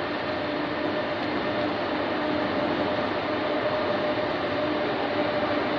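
Steady hum of high-speed trains in a large station hall: an even rush of noise with two steady tones under it, no change in level.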